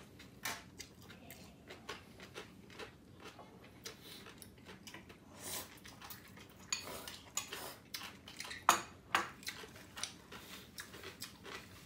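Eating sounds at a table: ramen noodles slurped and chewed, with a spoon and chopsticks clicking against bowls and the metal griddle pan in scattered sharp taps. The loudest is a single clink nearly nine seconds in.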